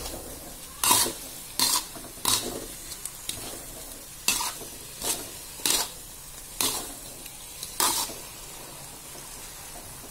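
Metal spatula scraping and clattering against a metal wok while stir-frying a wet vegetable mix, one stroke roughly every second at an uneven pace, over a faint steady sizzle.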